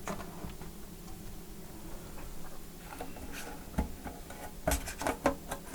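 A few light clicks and taps from laptop parts being handled on a repair bench, bunched in the second half, over a low steady hum.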